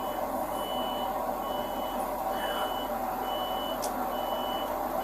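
A vehicle's reversing alarm beeping at an even pace, about one high beep a second, over a steady hum.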